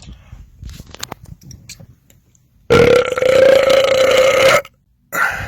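A man's deliberate, loud belch after gulping carbonated cherry cola, held at one steady pitch for about two seconds and cutting off sharply. It starts a little under three seconds in, after some faint mouth and throat noises.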